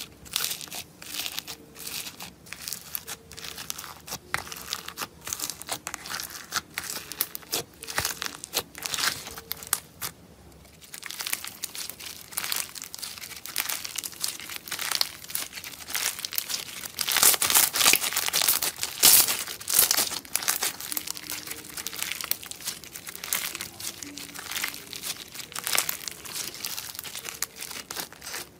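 Foam-bead slime (floam) being pressed, squished and stretched by hand, the beads giving dense runs of quick crackles and pops. There is a brief quieter gap about ten seconds in, and the crackling is loudest a little past the middle.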